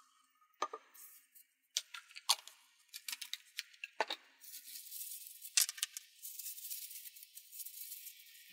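A few light clicks and taps as a small steel bolt is lifted out of a plastic bottle with metal tweezers and set down on paper. About halfway through this gives way to paper towel rustling as the bolt is wiped dry of acetone.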